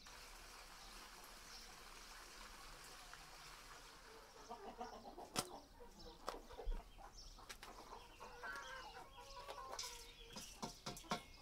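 Faint chickens clucking, with short bending calls coming in about four seconds in and continuing, mixed with a few sharp clicks or knocks. A soft steady hiss fills the first few seconds.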